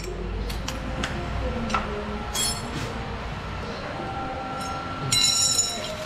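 Metal motorcycle rear sprockets clinking and ringing as they are handled on a concrete floor: scattered light clinks, with a ringing clink about two and a half seconds in and a longer, louder ring about five seconds in.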